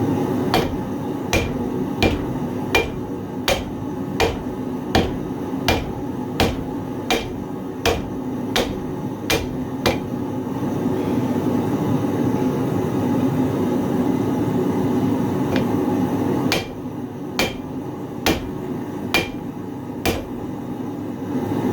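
Hand hammer striking hot 1095 carbon steel on an anvil in a steady rhythm of about one and a half blows a second, forging the thick plate. The blows stop for about six seconds midway, then a second run of six blows follows, over a steady rumble.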